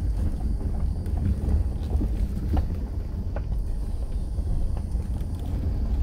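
2011 Subaru Outback rolling down a gravel track, heard from inside the cabin: a steady low rumble with a few faint ticks of gravel under the tyres.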